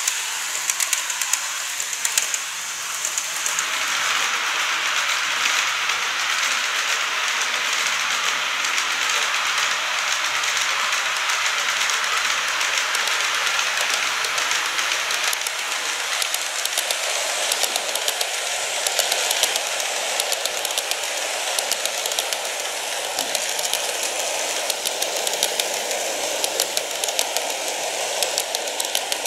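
N-gauge Greenmax Tobu 50050 series model train running on plastic track: a steady whirr of its motor and wheels with many small rapid clicks from the wheels over the rail joints. It grows louder a few seconds in as the train comes nearer.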